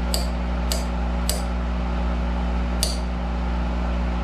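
Monarch 10EE lathe humming steadily under power, with four light metallic clicks in the first three seconds, made by metal tapping on the chucked stock while it is being trued to run true.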